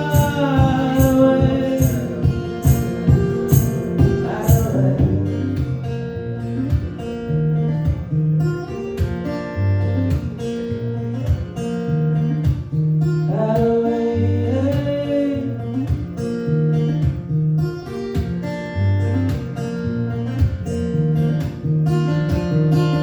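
Live acoustic band music: acoustic guitar playing over steady bass notes, with wordless vocal lines near the start and again around the middle. High rhythmic percussion ticks along in the first few seconds.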